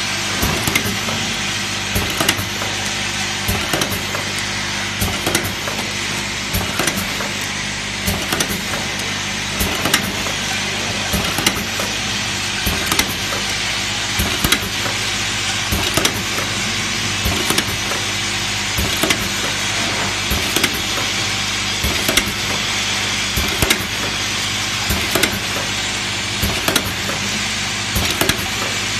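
Automatic cap assembling machine running: a steady hum and rattle from its vibratory bowl feeders, with sharp clacks every second or two from the pneumatic cylinders and indexing rotary table.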